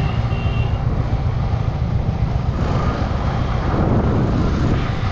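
Motorcycle engine running as the bike rides along at low speed, with wind rumbling on the rider's microphone.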